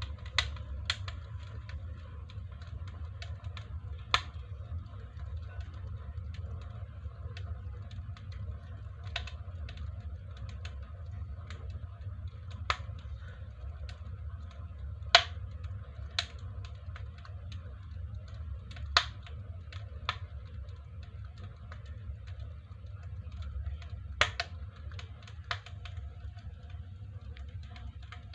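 Wood burning in a stove-fireplace firebox, crackling with sharp, irregular pops every one to three seconds.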